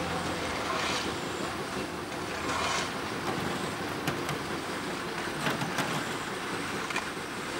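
Narrow-gauge diesel shunting tractor and steam locomotive moving slowly together in the depot yard: a steady engine rumble, with short hisses every second or two.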